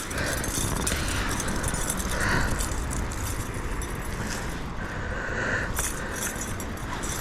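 Steady rush of creek water, with light metallic jingling and clinking from the chain fish stringer that the steelhead has just been clipped onto.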